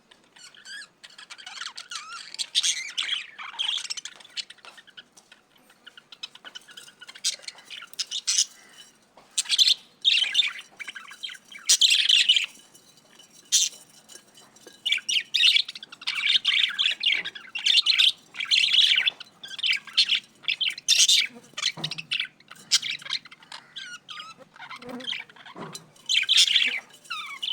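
Budgerigars chirping and chattering in quick, irregular bursts of high-pitched calls, with short pauses between.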